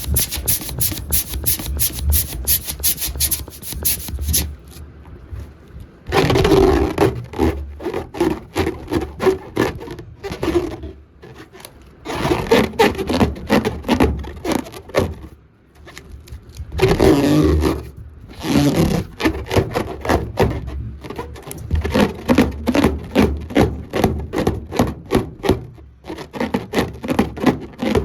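Rubber balloon being rubbed and squeezed, giving rapid runs of squeaky scraping strokes with a few louder, denser stretches.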